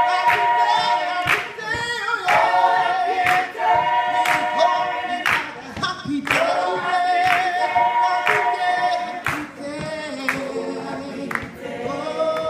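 A mixed choir of men and women singing long held notes with vibrato, with hand claps keeping time about once a second.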